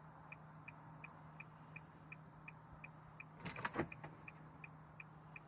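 Faint, regular electronic ticking or beeping, about three a second, over a steady low hum, with a brief louder rustle about three and a half seconds in.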